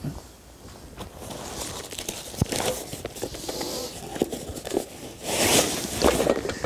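Rustling and crinkling of a Kriega OS12 waterproof fabric pannier being handled and opened by hand, with one sharp click about two and a half seconds in. The rustling grows louder near the end as the contents are rummaged out.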